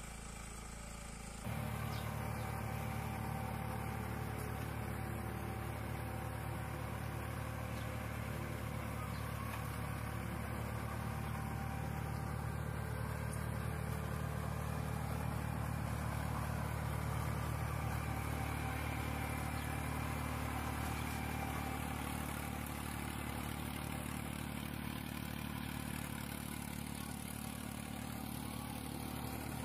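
Small tractor engine running steadily as the tractor drives along. Its even drone comes in abruptly louder about a second and a half in.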